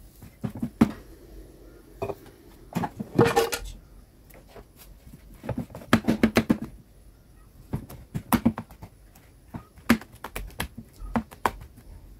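A hand mixing and kneading soft, sticky flour-and-water wrapper dough in a clear bowl: wet squelching and slapping that comes in short bursts of quick clicks, several times over.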